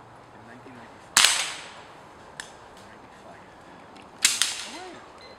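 Two sharp rifle shots about three seconds apart, each with a short fading tail, the second followed closely by another crack; a small click falls between them.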